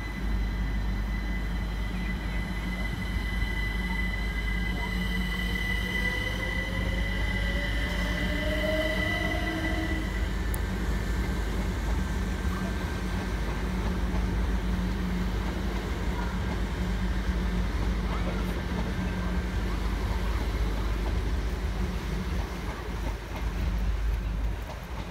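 Electric multiple unit train moving along the track with a constant low rumble of wheels on rail. About six seconds in, a whine rises in pitch for a few seconds as it gathers speed, and steady high tones fade out by about ten seconds in.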